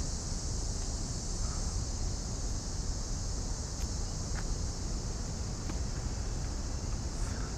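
A steady, high-pitched chorus of insects buzzing without a break, over a low rumble.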